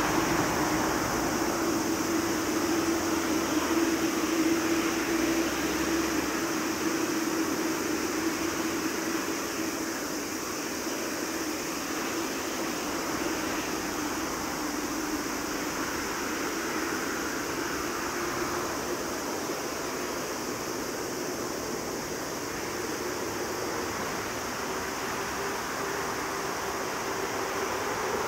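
Boeing 737-800 freighter's CFM56 turbofan engines at taxi power: a steady hissing rush with a low, even hum. It is loudest in the first several seconds and eases slightly after about ten seconds as the jet turns.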